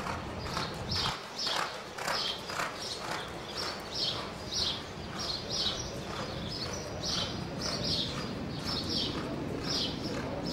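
Hoofbeats of a reining horse loping on soft arena dirt, in a regular rhythm of about two beats a second.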